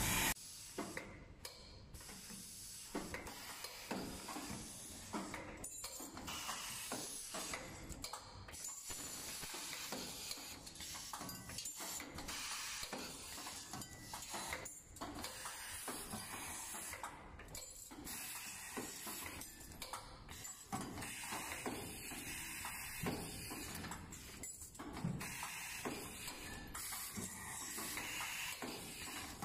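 TSD-860 automatic steel rule bending and creasing rule cutting machine running: irregular mechanical clicks and clacks from its feed, bending and cutting heads over a steady hiss.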